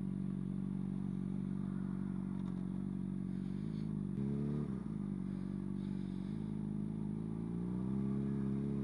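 Motorcycle engine running at low revs while rolling slowly in traffic. About four seconds in there is a brief throttle blip. From about six seconds on the engine note climbs gently and holds higher.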